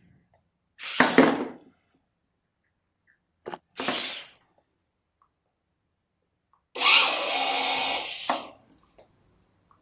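Servo motors of a robot elephant whirring in short bursts as it moves its legs and body: once about a second in, again near the middle, and longest and loudest near the end.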